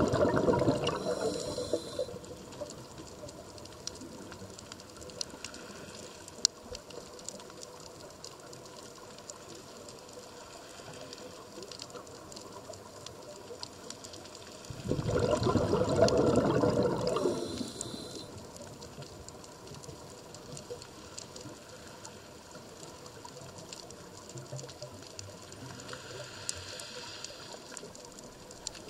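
Scuba diver breathing through a regulator: a burst of exhaled bubbles lasting a few seconds at the start and again about halfway through, with quiet underwater hiss and faint scattered ticks between.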